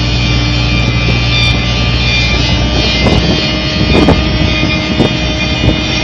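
Volvo EW55B wheeled excavator's diesel engine running steadily as the machine drives over rough dirt, with a few knocks and rattles from about three seconds in.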